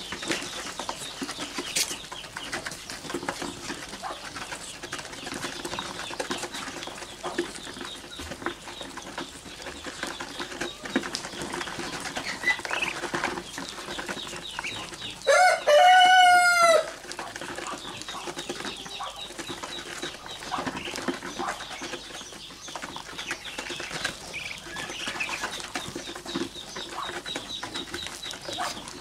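Flock of six-week-old Muscovy ducklings peeping and chirping without pause. About halfway through, one much louder drawn-out call lasts about a second and a half.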